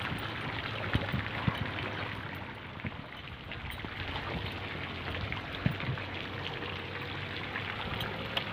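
Steady running water, trickling and splashing, with a few soft knocks scattered through it.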